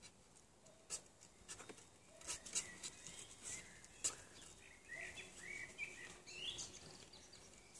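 Faint outdoor background: a few short bird calls, rising and falling, about five to six and a half seconds in, over scattered light clicks and rustles.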